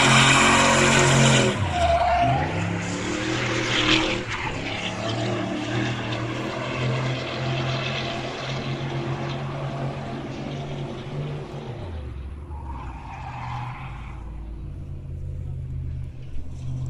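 A drifting car's engine held at high revs with its rear tyres spinning and screeching, smoking. The engine note drops and climbs back about two seconds in and dips again near the end, and the whole sound grows fainter as the car moves off.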